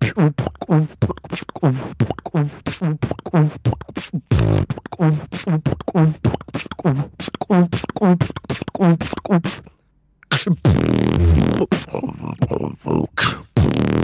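Human beatboxing: a quick, evenly spaced beat of vocal kick and snare strikes with hummed bass notes between them. It breaks off briefly about ten seconds in, then goes into a denser, noisier stretch before the beat picks up again.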